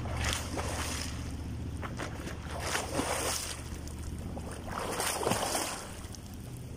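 Swimmer doing butterfly, the water splashing with each stroke, three times about two and a half seconds apart, over a low steady rumble.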